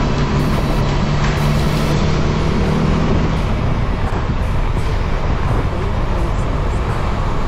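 Motorcycle engine running while riding, under heavy wind rush on the helmet or handlebar microphone. A steady low engine tone fades out about three and a half seconds in.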